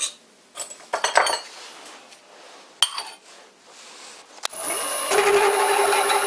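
10 mm twist drill on a lathe drilling into a steel block over a pilot hole. A few scrapes and clicks at first, then about four and a half seconds in the bit bites and a loud, steady cutting noise with a held pitched tone sets in.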